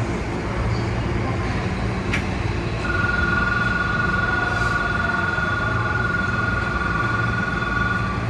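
Hankyu 8000-series train standing at a station with a steady low hum. There is a click about two seconds in, then a steady two-note electronic buzzer tone for about five seconds, stopping just before the end.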